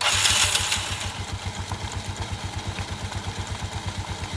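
Yamaha Mio scooter's single-cylinder four-stroke engine starting abruptly, loudest in the first second, then settling into a steady, evenly pulsing idle. The freshly cleaned and reassembled CVT runs smooth, with no chirp from its rubber parts.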